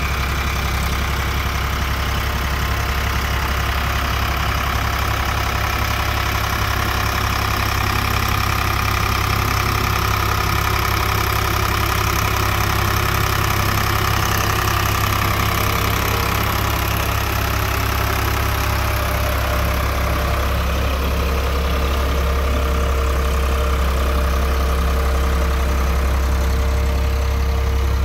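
Tractor's diesel engine running steadily as it pulls a mounted potato planter through the soil, a loud, even drone.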